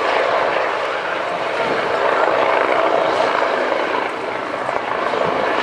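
Westland Wasp helicopter in flight: the steady running noise of its rotors and single turboshaft engine.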